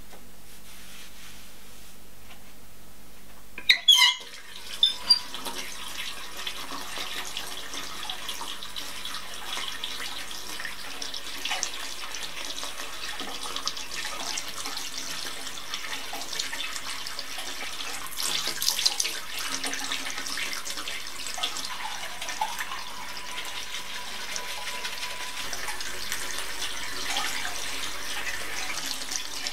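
Sink faucet turned on about four seconds in, with a few sharp sounds as it opens, then water running steadily from the tap.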